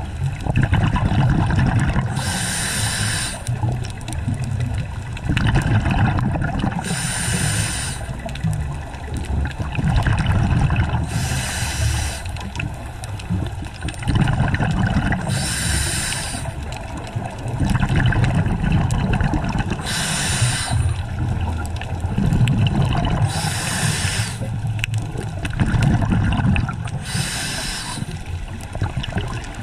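A scuba diver breathing through a regulator underwater. A hiss comes about every four seconds, seven times, with the low rumble of exhaled bubbles in between.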